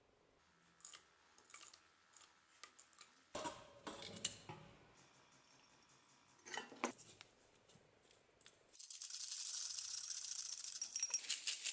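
Small brass blowtorch parts clicking and clinking as they are handled, with a heavier knock or clunk a few seconds in. From about nine seconds in comes a loud, steady rubbing hiss that turns into rapid rhythmic scrubbing near the end, as a paper towel is rubbed over the brass tank.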